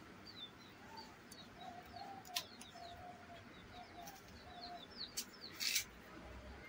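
Knife cutting a large, firm guava over a plate: a couple of sharp clicks and one short crunching cut about two-thirds of the way through. Faint high chirping runs underneath.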